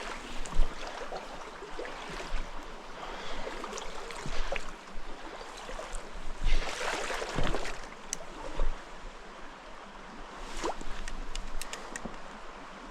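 Mountain stream water running steadily, with scattered small clicks and knocks over it and a louder rushing swell about seven seconds in.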